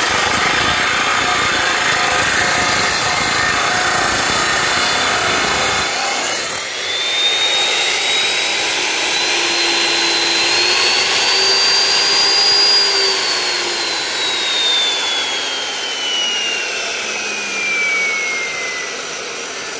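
355 mm abrasive cut-off saw grinding through a large steel channel, then about six seconds in the cut ends abruptly and the unloaded motor's whine rises in pitch. About halfway through the whine turns and falls steadily as the cutting wheel runs down.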